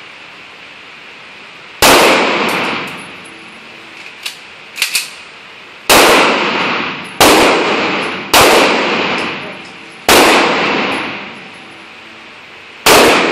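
Six pistol shots at irregular intervals, each ringing out with a long echo off the walls of an indoor firing range. A few light metallic clicks fall between the first and second shots.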